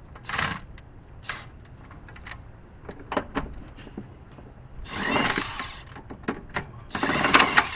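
A wrench and ratchet working a tight nut on a car's sway bar link: scattered metal clicks and knocks, with two longer ratcheting runs about five and seven seconds in.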